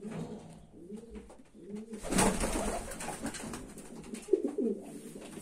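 Racing pigeons cooing, a run of soft arching coos repeated every second or so, with a louder rustling noise starting about two seconds in.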